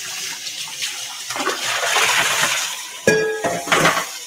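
Kitchen tap running at the sink while hands are washed under it, the rush of water swelling in the middle. About three seconds in, a sharp clink with a short ring.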